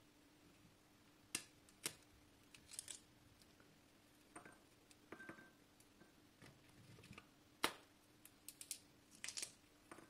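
Fresh green pea pods being shelled by hand: scattered sharp snaps and clicks as the pods are split and peas drop into a ceramic bowl, with short rustles of the pods. A faint steady hum runs underneath.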